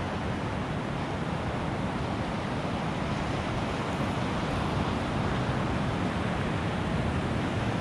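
Steady noise of surf breaking on a sandy beach, mixed with wind buffeting the microphone.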